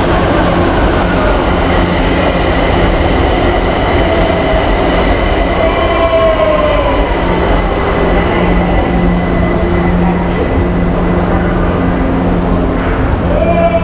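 São Paulo Metro Line 2 train standing at the platform, its onboard equipment running with a steady low hum and steady high whining tones.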